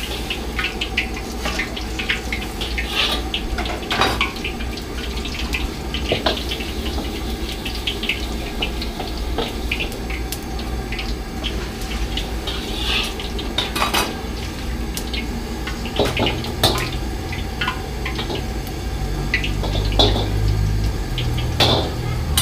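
Steel ladle clanking and scraping against a carbon-steel wok, in irregular metallic clinks, over the steady low rumble of a lit gas wok burner.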